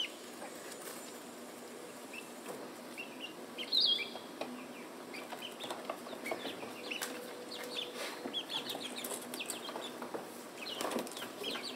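Chickens clucking, with many short high calls scattered through, one louder call about four seconds in.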